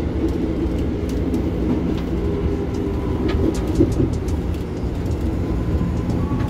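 Interior of a KRL Commuterline electric multiple unit running on the track: a steady rumble of wheels on rail, with a steady hum from the train's IGBT-VVVF traction motor drive.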